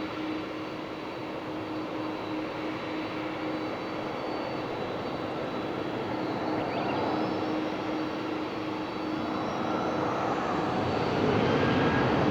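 Boeing 767-300ER's twin jet engines running and growing steadily louder, with a high whine that rises in pitch from about halfway through.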